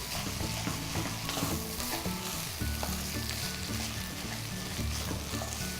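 Rice noodles with vegetables and chicken sizzling in a pan over reduced heat as they are stirred, under a quiet background music track.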